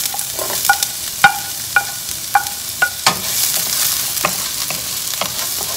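Chopped onions hitting hot olive oil in a nonstick frying pan and sizzling. In the first three seconds a utensil scraping the onions off a china plate gives about six ringing clinks. After that the sizzle grows stronger as the onions are stirred with a wooden spatula, with light ticks.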